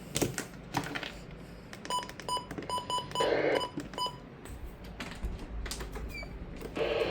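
Sharp mechanical clicking with a quick run of about ten short, high electronic beeps, about five a second, in the middle; a loud steady noise comes in right at the end.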